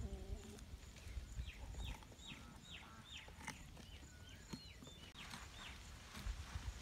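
Quiet outdoor background with a low rumble, a quick run of short high notes that each fall in pitch, starting about a second and a half in, and a few soft knocks.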